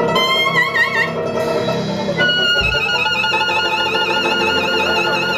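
Clarinet playing a New Orleans jazz solo with a wavering vibrato, backed by banjo and drums; about two seconds in it settles into a long held high note.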